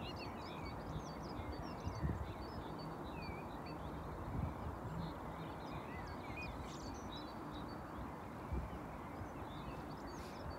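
Small birds chirping and twittering in quick short calls over a steady outdoor rumble, with a few soft low thumps of wind on the microphone.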